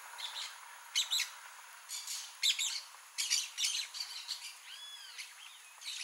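Blaze-winged parakeets giving short, harsh squawking calls, one or two bursts about every second. A few clear, arching whistled notes come near the end.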